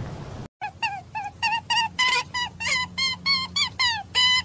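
A rapid series of short, pitched animal calls, about four to five a second, each dipping slightly in pitch. They start after a brief silence about half a second in and grow louder after about two seconds.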